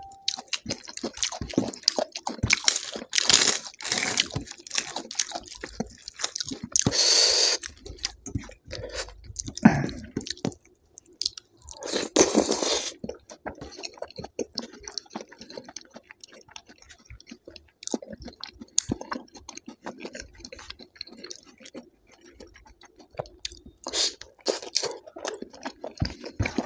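Close-miked mouth sounds of eating a dal-and-rice meal by hand: wet chewing and squishing with crunchy bites. The sound is a stream of small clicks and smacks, with a few louder bursts.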